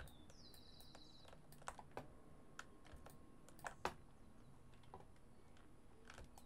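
Faint, scattered clicks of a computer keyboard and mouse buttons, the loudest pair coming a little before four seconds in.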